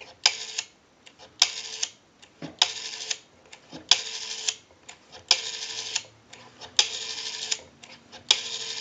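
Rotary dial of an RTT-56A Belgian desk telephone being dialed digit by digit, seven times. Each pull returns with a quick run of clicks, and the runs grow longer as the dialed digits climb from 2 to 8.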